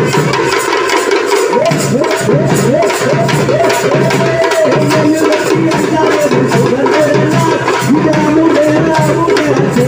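Parai frame drums beaten fast with sticks in a driving folk rhythm, together with a large barrel drum. A wavering pitched melody rides over the drumming from about a second and a half in.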